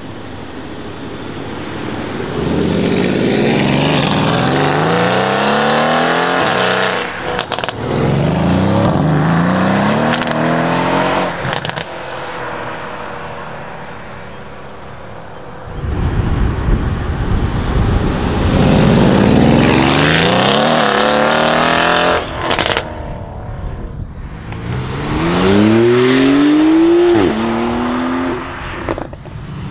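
Mercedes-AMG C63 S Estate's twin-turbo V8, breathing through decat downpipes and a titanium iPE exhaust, accelerating hard several times. The engine note climbs in pitch through the gears and breaks at each upshift, with a sharp crack at some of the shifts.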